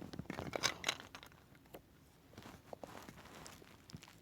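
Faint rustling with scattered small clicks, busiest in the first second, then settling to low background noise.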